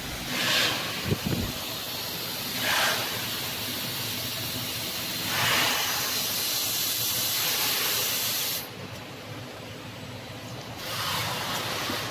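Steady hiss of a robotic fiber laser welder working a seam in thick aluminum plate, cutting off sharply about nine seconds in as the weld ends. A few louder rushing swells come and go, with a brief low knock about a second in.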